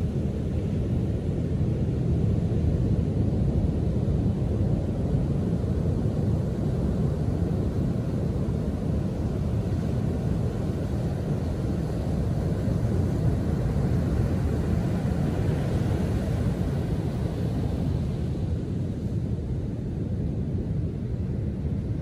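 Ocean surf still heavy after a winter storm, crashing and rolling onto a sandy beach: a steady low rumble of breaking waves, with a louder hissing wash of foam swelling about two-thirds of the way through.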